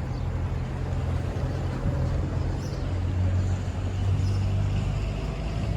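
Public bus engine running, heard from inside the moving bus as a steady low drone with road noise.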